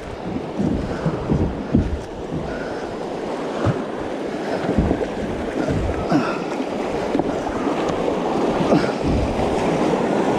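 Creek water rushing through a shallow riffle around a kayak, growing steadily louder, with wind buffeting the microphone.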